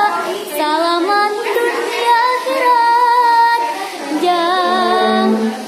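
A young female voice singing a Sundanese song, drawing out long held notes with a wavering vibrato. A low steady note sounds underneath near the end.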